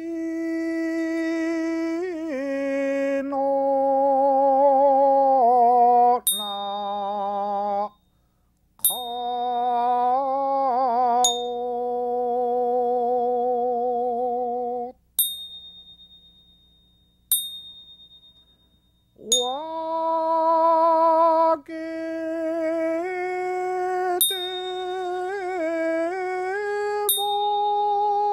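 A man chanting a Buddhist goeika hymn solo in long held notes with a wavering vibrato and slow steps in pitch, punctuated about every two to three seconds by sharp strikes of a hand bell (rei) and small gong (shōko) that ring on in a high pure tone. Twice the voice pauses, around halfway through, and only the bell ringing is left.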